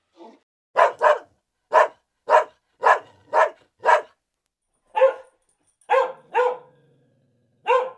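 A dog barking about a dozen times in short, separate barks, some in quick pairs.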